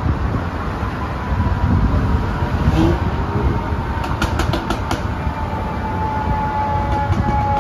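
Steady rumble of car traffic on a bridge roadway below the walkway. A faint thin tone slowly falls in pitch through it, and a quick run of faint clicks comes about four seconds in.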